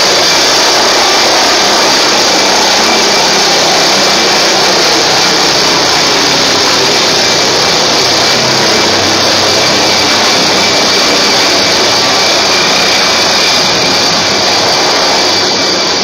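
MD 902 Explorer air ambulance helicopter lifting off and climbing away: loud, steady turbine and rotor noise with a steady high whine, slowly fading toward the end as it gains height.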